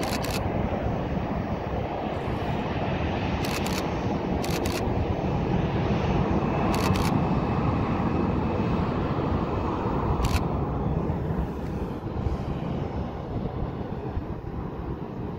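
Boeing 737-800's CFM56-7B turbofan engines running at taxi power: a steady rumble with a faint whine. The sound swells around the middle and eases after about ten seconds as the jet taxis away.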